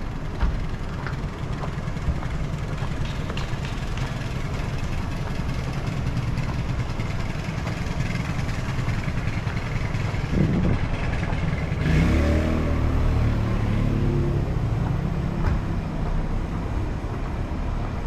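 City street traffic at night: a steady low rumble of motor vehicles, with a vehicle engine passing close and louder, its pitch rising, from about ten to fifteen seconds in.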